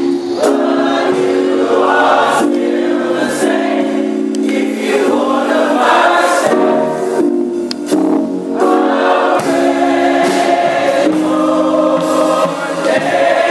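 Gospel choir singing, with held chords that change every second or so.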